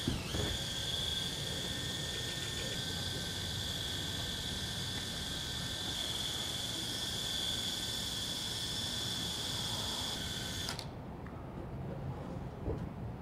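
Cordless drill turning a long-shafted mixing paddle in a tote of liquid, its motor giving a steady high whine under the load of stirring. It comes up to speed at the start, runs evenly, and stops about eleven seconds in.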